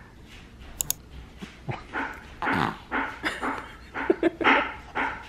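Young infant grunting and making short squeaky vocal noises, a couple a second, through the second half, with two sharp clicks about a second in.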